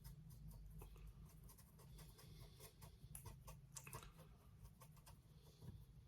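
Faint scratching and light ticks of a small paintbrush working paint along the side of model railway track.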